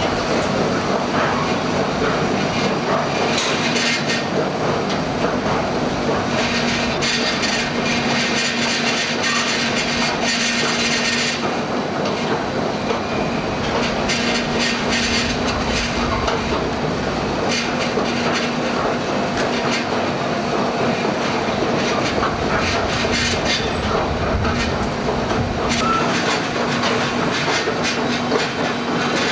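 Heavy machinery running steadily: a constant hum with metallic rattling and clanking, which gets busier for several seconds after the start and again near the end.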